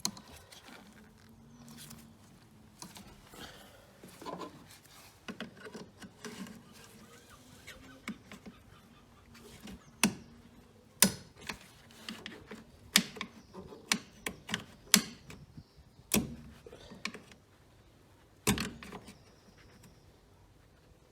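Irregular sharp clicks and knocks of hand tools and loose engine-bay parts being handled, with a cluster of louder clicks over the second half.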